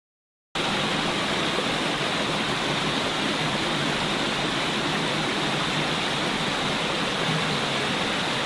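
Steady rushing water, a constant even roar, cutting in suddenly about half a second in after dead silence.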